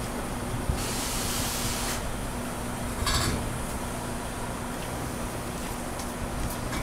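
Heavy low-loader transport running slowly with a steady low rumble and hum. A hiss of air about a second in lasts about a second, and a short knock or clatter comes just after three seconds in.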